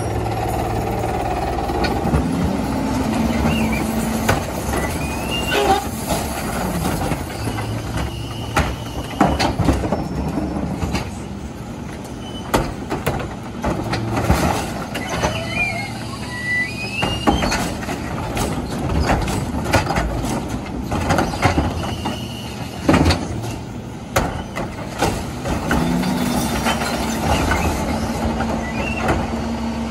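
McNeilus rear-loader garbage truck running at the curb, with plastic recycling carts knocking and banging against the hopper as they are tipped by hand. Near the start and again near the end the engine rises in pitch and holds as the hydraulic packer runs.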